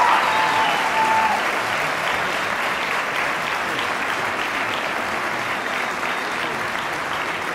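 Audience applauding steadily, over the tail of the choir's last held note, which dies away about a second in.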